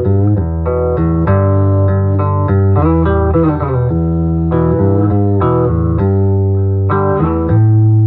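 Electric guitar played through an Acoustic Control Corp 260 solid-state amp head, with a string of sustained notes and a heavy low end.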